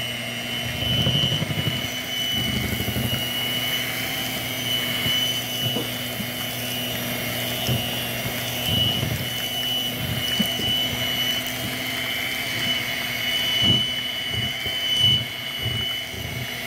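Electric hand mixer running steadily with a high whine, its twin beaters churning thick mashed purple sweet potato filling. Irregular low thuds come as the beaters work through the thick mash to smooth it out.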